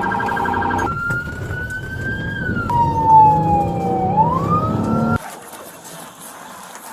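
Police car siren, first a rapid pulsing warble, then a slow wail that rises, falls and rises again before cutting off abruptly about five seconds in.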